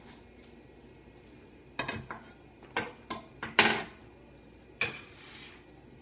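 Metal bench scraper scraping and knocking on a wooden butcher-block board as it works a pile of riced potatoes. It makes about five short strokes, starting about two seconds in, and the loudest comes a little past halfway.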